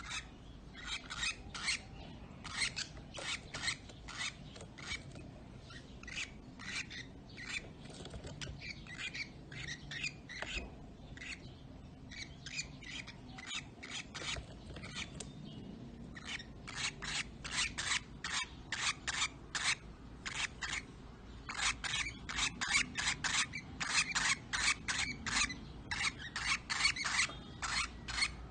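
Lovebirds giving harsh, rasping chatter in rapid runs of short calls, thicker and louder in the second half. It is the agitated scolding of lovebirds that don't like the cat.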